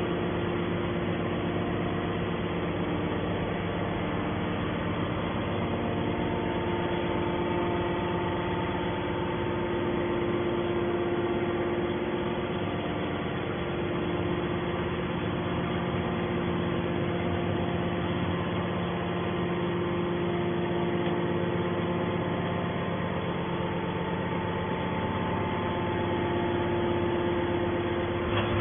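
Hydraulic baler's motor and pump running with a steady hum of several constant tones.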